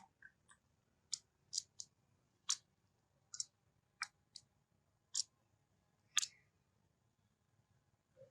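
About a dozen short, sharp clicks at uneven intervals, with quiet between them.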